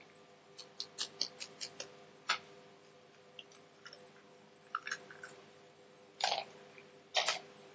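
Raw eggs being cracked by hand into a plastic shaker cup: a series of light clicks and taps of eggshell, with two louder, longer cracks near the end.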